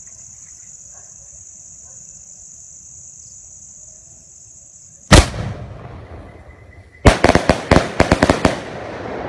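Crickets chirring steadily, then about five seconds in a single loud firework bang. About two seconds later comes a rapid string of around a dozen sharp crackling pops as an aerial firework bursts into red sparks.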